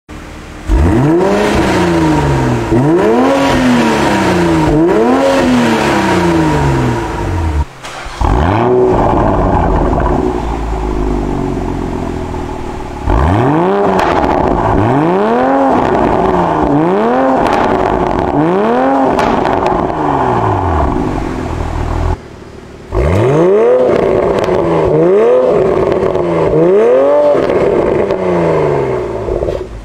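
Toyota GR Supra's 3.0-litre B58 turbocharged inline-six revved in quick repeated blips through an Fi Exhaust valvetronic catback with the exhaust valves open. The pitch rises and falls with each blip, over a few takes joined by short cuts.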